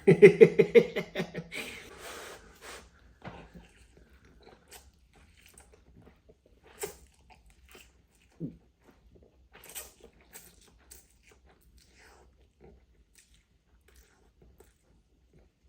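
Close-up mouth sounds of a man eating spicy stir-fried instant noodles: a voiced hum or groan in the first second or two, then scattered wet chewing clicks that grow sparse and faint, with one short louder mouth sound about eight seconds in.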